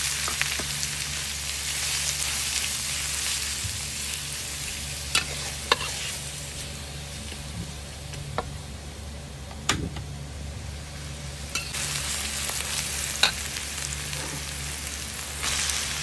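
Chopped onion sizzling in hot oil in a stainless steel wok, stirred with a metal spatula that clicks and scrapes against the pan a few times. Near the end the sizzle rises again as minced beef goes into the wok.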